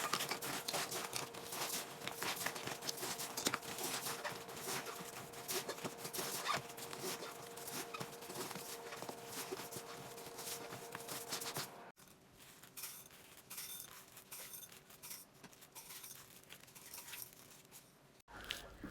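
Dense, rapid crinkling and crackling clicks over a faint steady hum. About twelve seconds in, after a cut, they turn quieter and sparser.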